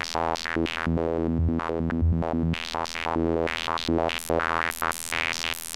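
A Serum synthesizer sawtooth patch playing a fast psytrance-style sequence of short repeated notes. It runs through a bandpass filter whose cutoff is swept by LFOs, so the brightness of the notes keeps shifting up and down in an irregular pattern.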